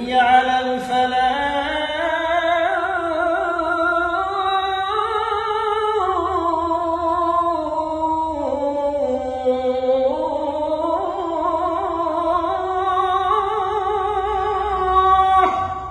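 A man's unaccompanied singing voice holding one long melismatic phrase in a single breath, with a quick vibrato, the pitch climbing, falling and climbing again, then stopping shortly before the end.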